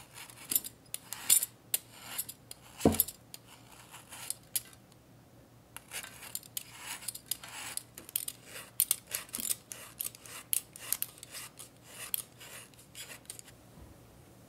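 A metal peeler shaving curls off a block of dark couverture chocolate in quick scraping strokes, two or three a second, with a short pause about five seconds in. A single sharper knock about three seconds in.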